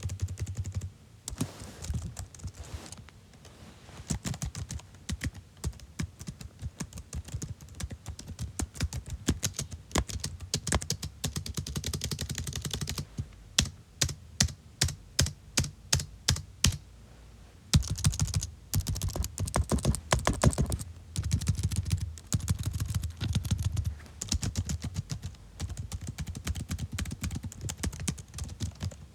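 Computer keyboard being typed on: rapid runs of key clicks, with a stretch in the middle of about a dozen separate, louder single key presses at an even pace of about three a second.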